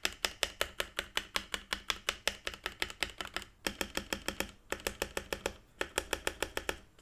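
Keychron K4 mechanical keyboard with factory-lubed Gateron G Pro Red switches being pressed in a fast, even rhythm of about six keystrokes a second. The runs of strokes are broken by brief pauses, and the tone of the strokes changes slightly about halfway through.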